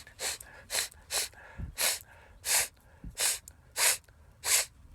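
A man's quick, sharp gasping breaths, about eight in a row and under a second apart, as a sneeze builds up without yet coming.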